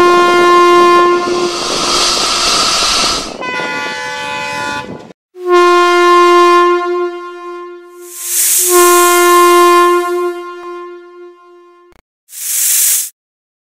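Diesel locomotive horn sounding in about four long blasts, one of them at a different pitch, with the rumble of the running train under the first. A short burst of hiss comes near the end.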